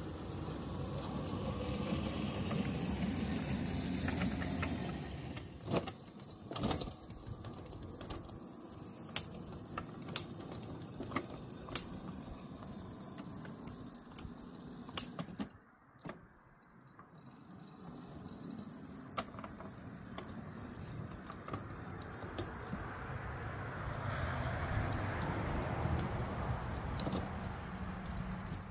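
7¼-inch gauge miniature locomotive running along the track pulling a flatcar, a steady rumble with sharp clicks about once a second from the wheels on the track through the middle of the stretch.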